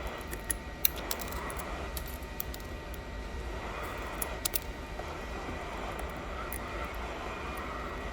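Steady whir of a workshop blower, with light scattered clicks and taps of small tools on the phone's cracked back glass.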